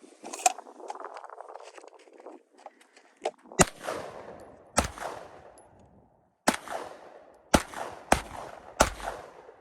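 A string of single gunshots fired one at a time at an uneven pace, each followed by a short echoing tail.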